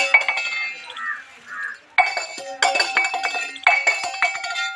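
Metal bells struck again and again in quick clusters, each strike clanging and ringing on at a few steady pitches, with a quieter gap about a second in.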